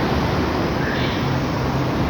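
City street traffic noise: a steady rumble of vehicle engines and passing traffic.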